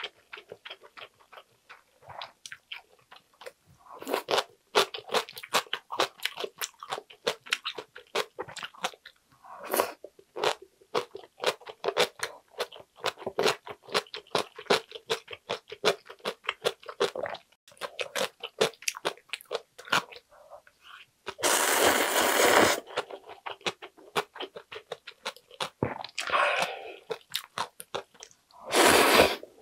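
Close-miked chewing of spicy ramyun noodles, full of rapid wet clicks and crisp crunchy bites. Twice, about two-thirds through and just before the end, a loud slurp of noodles.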